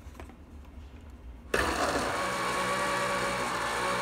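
Countertop blender switched on about a second and a half in, after a few faint handling clicks. Its motor then runs steadily as it purées tomatoes with water.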